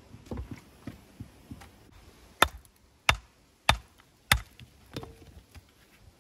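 Hammer striking building stone: a few lighter taps, then four hard, sharp blows in an even rhythm about two-thirds of a second apart, and a last lighter knock.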